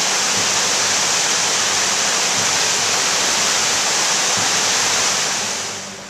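River Tees rushing over rocky rapids in high water: a loud, steady roar of white water that drops away about five and a half seconds in.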